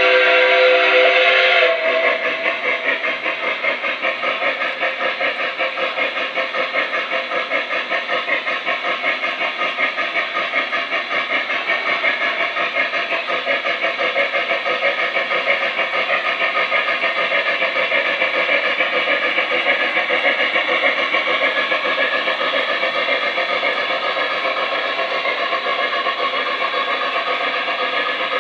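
Lionel Flyer Berkshire S-gauge model steam locomotive's onboard sound system: a steam whistle that cuts off about two seconds in, then rapid, steady steam chuffing as the engine runs along the track.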